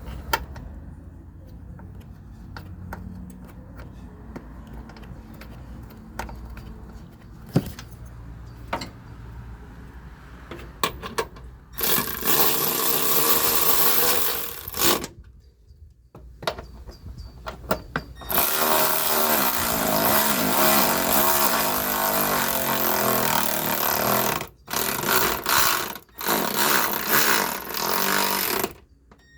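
A power tool running in long bursts, driving the 13 mm bolt at the bottom of a washer-fluid tank, after some light clicks of tools and parts being handled. The first burst lasts about three seconds; the second runs for about ten seconds, with two brief stops near the end.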